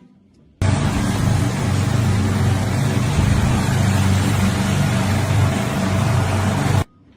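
A loud, steady engine or machine running, with a low pulsing hum; it starts suddenly about half a second in and stops suddenly near the end.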